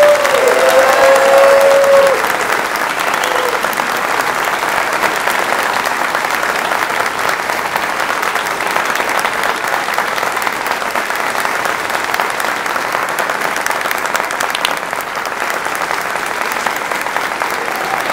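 Audience applauding steadily, loudest in the first two seconds, when a voice rises briefly over the clapping.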